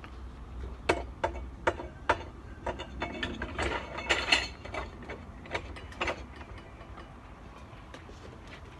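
Sharp metallic clicks and clanks from hand tools being worked on a tire at a manual tire-changer stand, about a dozen irregular strikes that are thickest a few seconds in and stop about two-thirds of the way through.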